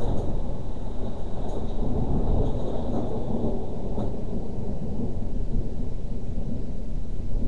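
A thunderstorm: a long, low rumble of thunder over falling rain, with a few faint raindrop ticks.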